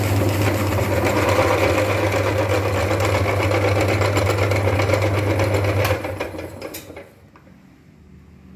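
Meat grinder running steadily with its motor humming and a crackly grinding noise as it chews through wafer sticks. It stops about six seconds in, dying away over about a second.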